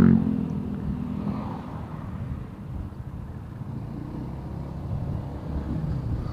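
Motorcycle running on the road, heard through a helmet-mounted camera's external microphone, with a steady low rumble of wind on the mic.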